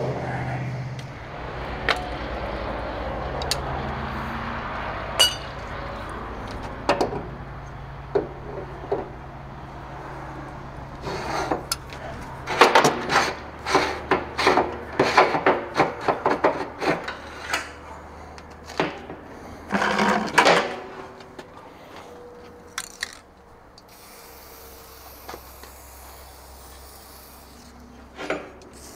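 Handling noise: a run of sharp knocks, clicks and scrapes, thickest in the middle, over a low steady hum that fades during the first half.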